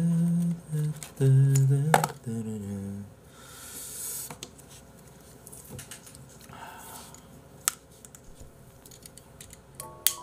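A man's voice for the first three seconds, then a quiet room with small clicks and rustles. Near the end a sharp click as a cigarette lighter is struck, and light music notes begin just after.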